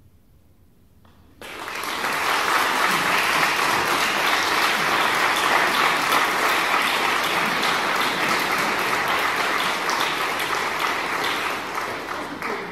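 Audience applauding, breaking out suddenly about a second and a half in after a brief hush and holding steady, easing slightly near the end.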